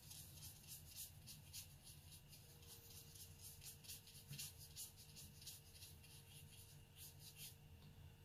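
Faint, quick strokes of a fine watercolour brush flicked across Arches 140 lb watercolour paper, a soft scratchy brushing repeated a couple of times a second.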